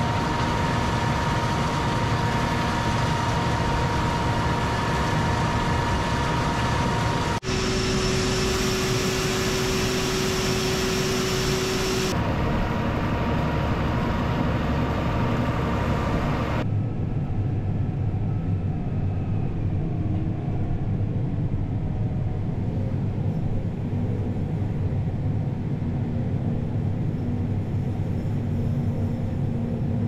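Case IH tractor engine running steadily under way in a corn field, with a combine harvesting close ahead. The sound shifts abruptly a few times and turns duller about halfway through, as if heard from inside the tractor cab.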